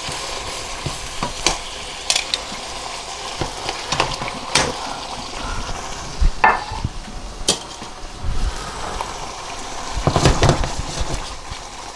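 Marinara sauce sizzling steadily in a pan as chuck steaks are laid into it with metal tongs, with a dozen or so sharp clinks of the tongs and pan, most of them together about ten seconds in.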